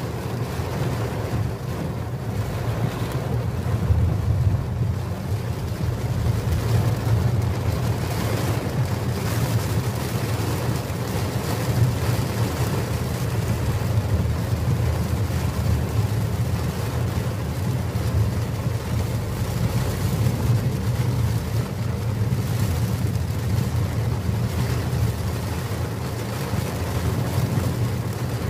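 Car driving through floodwater in heavy rain, heard from inside the cabin: a steady low rumble and rush of water and rain.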